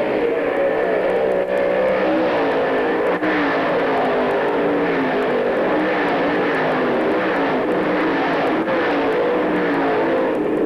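Several dirt-track race car engines running together at racing speed, their pitches overlapping and rising and falling as the cars go through the turn.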